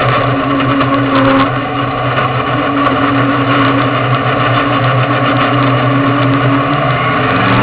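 Sportsman modified dirt-track race car's engine running loud at a steady, even pitch, heard from inside the cockpit; the pitch begins to rise slightly near the end.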